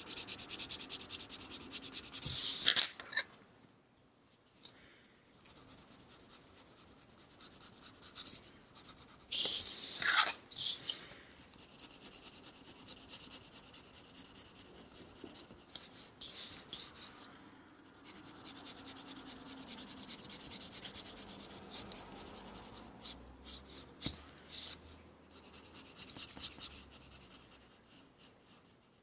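Coloured pencil being drawn across smooth paper in short, scratchy strokes, stopping and starting. A few louder knocks and rustles come in between, about two seconds in, around ten seconds in and again after sixteen seconds.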